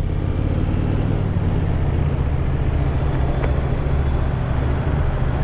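Honda Steed 400's V-twin engine running steadily while the motorcycle is ridden, with wind and road noise on a helmet-mounted camera.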